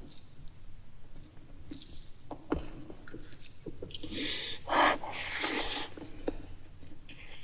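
Close-miked eating of meat curry and rice: small wet chewing and lip-smacking clicks, with a louder, breathy rushing sound about four to six seconds in.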